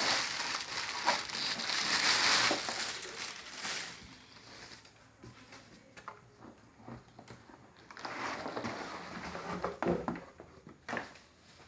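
Packaging being handled and unwrapped, crinkling and rustling. The sound is loudest for the first few seconds, drops to small scattered knocks and clicks, and picks up again about eight seconds in.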